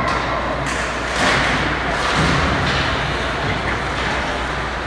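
Ice hockey game: several knocks and thuds of puck, sticks and players against the boards and ice, over a steady low hum.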